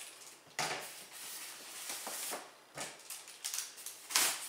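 Box cutter scraping and slicing along the tape sealing a styrofoam shipping box, a rough rasping stretch followed by several sharp clicks and a louder crack near the end.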